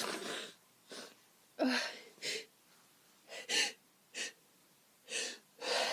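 A person's sharp, breathy gasps and sniffs come one after another, about eight in all, and one has a short voiced 'ah' at its start about a second and a half in. It is the nose and breathing reacting to a snort of Chhinkni sneezing powder, in the lead-up to a sneeze.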